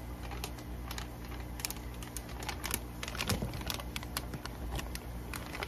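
Thick plastic fish-shipping bag crinkling and crackling in scattered sharp clicks as it is lifted out of a plastic bucket, with water running off it back into the bucket.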